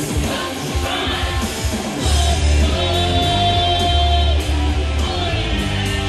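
Rock song with a woman singing and an EVH Frankenstrat electric guitar played through an EVH 5150 Iconic amp. The bass drops out for about the first two seconds, then comes back in, and a long note is held about three seconds in.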